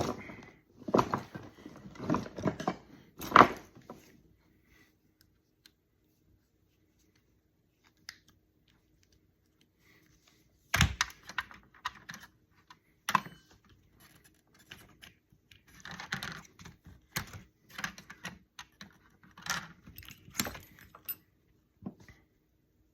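Irregular clicks, clinks and knocks of hand tools and plastic parts being handled while a router's case is worked open, with a near-silent stretch of several seconds in the middle.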